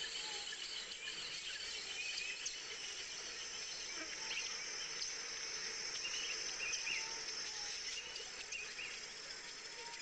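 Steady high-pitched insect drone with scattered short bird chirps.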